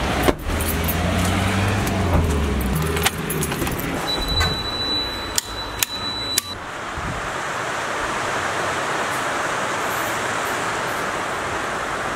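A few sharp clicks about five to six seconds in as switches on a fuse board are thrown, then a vibratory finishing tumbler loaded with tumbling media starts and runs with a steady, dense rushing rattle.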